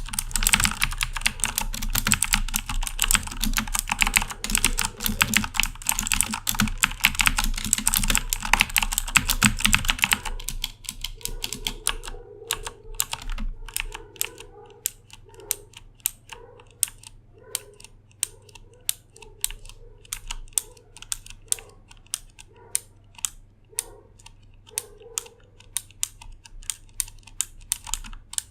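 Corsair K70 mechanical keyboard with clicky Cherry MX Blue switches being typed on: fast, dense typing for the first ten seconds or so, then slower, separate keystrokes.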